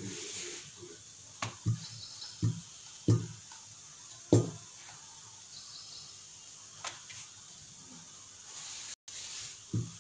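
Wooden rolling pin rolling out flatbread dough on a floured board, knocking against the surface in a series of irregular dull thuds over a faint steady hiss.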